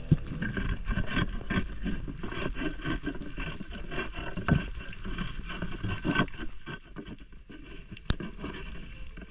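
Underwater knocking and scraping of a thin probing stick and gloved hand against reef rock: irregular clicks and scrapes over a steady water hiss, thinning out after about seven seconds.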